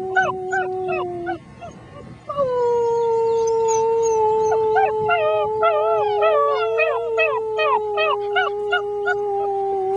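Six-week-old German Shepherd puppies howling along with a person's long, steady, low howled note. The person's note breaks off about a second and a half in and starts again a second later, while the puppies' short, high, falling howls come several a second over it, thickest in the second half.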